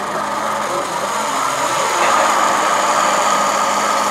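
Radio-controlled model tank running across paving, a steady mechanical motor and track sound that gets louder about two seconds in as the tank comes closer.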